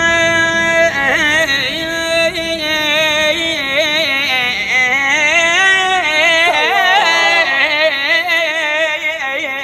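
A man singing Iraqi-style: a long held note that gives way about a second in to a long run of wavering, ornamented melisma.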